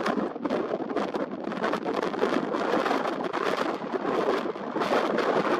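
Strong wind buffeting the camera's built-in microphone, a loud gusting rumble that swells and dips irregularly.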